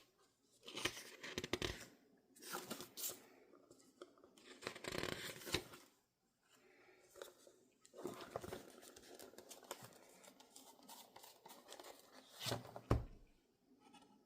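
Paper and plastic packaging rustling and tearing by hand in several uneven bursts, with a thump near the end.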